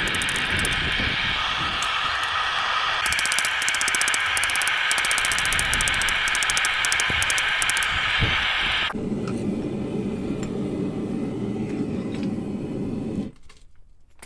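Steady hissing roar of a propane forge burner. About nine seconds in it changes abruptly to a lower rushing noise, which cuts off near the end.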